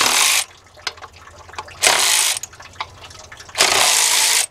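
A ratchet and 10 mm socket loosening the water pump pulley bolts on a Ford 5.4 V8, in three short bursts of rapid ratcheting about two seconds apart.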